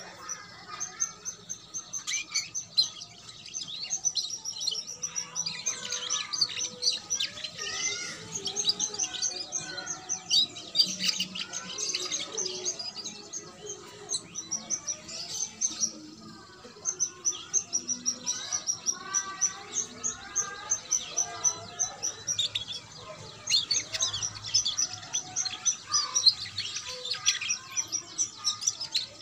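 Juvenile domestic canary, about two months old, singing a continuous, rapid twittering song of high chirps and trills.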